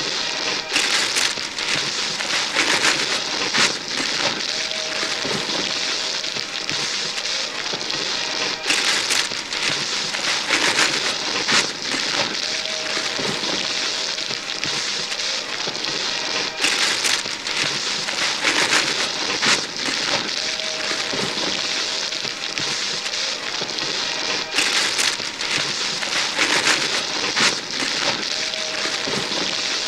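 Wrapping paper being torn and crumpled off gift boxes by several pairs of hands: a dense run of rips and crinkles with louder tearing every few seconds. The same stretch of tearing repeats about every eight seconds.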